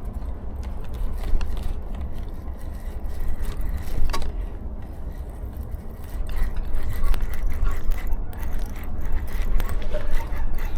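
Close handling noise of fishing gear: scraping, rattling and scattered clicks over a steady low rumble on the microphone.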